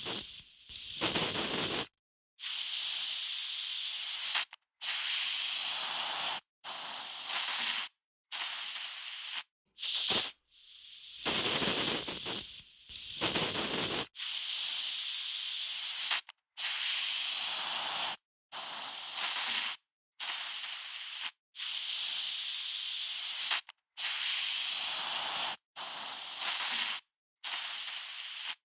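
Aerosol spray can releasing a series of hissing bursts, each one to two seconds long, with short silent breaks between them.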